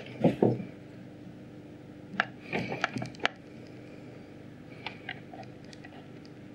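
Handling noise: a few knocks, then a cluster of sharp clicks and taps as a small plastic plate with soldered wires is picked up and handled over a desk, with a couple of faint ticks later on.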